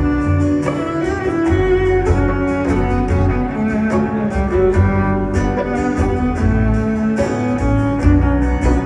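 Live acoustic band playing an instrumental passage: bowed strings carry a gliding melody over acoustic guitar and a low bass line.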